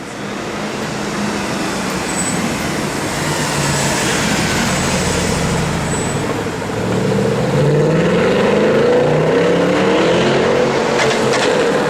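Mercedes-Benz C63 AMG V8 accelerating in street traffic, its engine note climbing in pitch from about seven seconds in and then holding loud.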